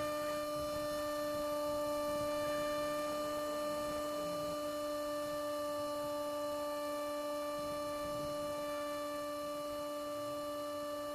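Electric motor and pusher propeller of a Mini Skywalker model plane running at steady throttle in flight: an even, unchanging whine, with a low rush of air underneath.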